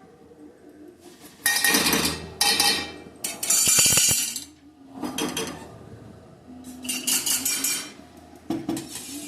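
Metal utensils scraping and clattering against cookware in about six separate bursts, the longest and loudest about three to four seconds in.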